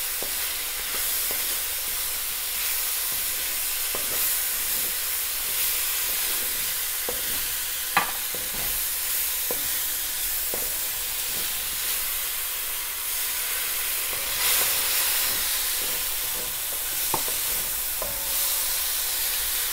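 Sliced mushrooms sizzling steadily in a lightly oiled pan as a wooden spoon stirs them, with a few light clicks of the spoon against the pan, the sharpest about eight seconds in.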